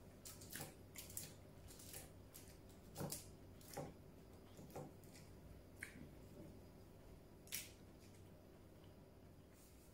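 Quiet eating sounds: irregular soft clicks and smacks of chewing and of fingers scooping rice in an aluminium foil tray, about one a second.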